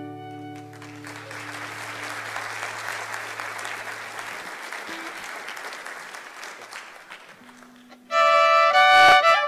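The last held notes of a slow fiddle and acoustic guitar tune fade out under audience applause, which runs for several seconds. Near the end a solo fiddle starts loudly into a fast, upbeat tune.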